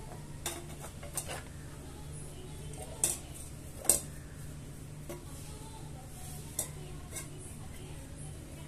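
About six scattered sharp little clicks and taps, the loudest two around three and four seconds in, from a paintbrush and a plastic CD being handled while the brush is dipped into small paint bottles. A steady low hum runs underneath.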